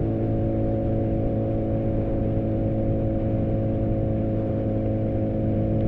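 Sports motorcycle engine heard from the rider's seat, running at a steady, unchanging cruise with no revving, under low wind rush on the helmet camera.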